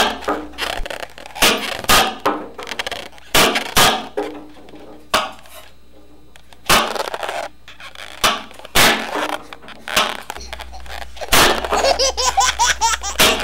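Short bursts of laughter mixed with sharp knocks, coming at irregular intervals about once a second. There is a lull a little before the middle, and the bursts come thicker near the end.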